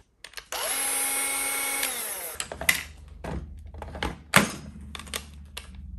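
Cordless grass shear's motor runs briefly, starting about half a second in, and winds down with a falling pitch after about a second and a half. Scattered clicks and knocks of the tool's parts being handled follow.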